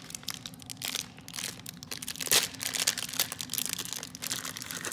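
A crinkly plastic toy wrapper being pulled open by hand, crackling irregularly throughout, with one sharp, louder crackle about halfway through.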